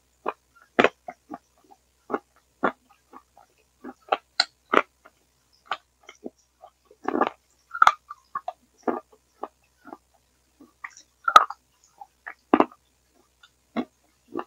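Close-up mouth sounds of eating: irregular wet smacks, clicks and chewing noises with short gaps between. They come through a failing earphone-headset microphone that garbles them into gurgles, which the uploader likens to a dying frog's gurgling rather than ASMR.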